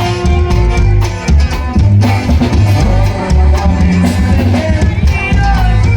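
Norteño band playing a corrido, with a bouncing bass line and a steady drum beat under the melody.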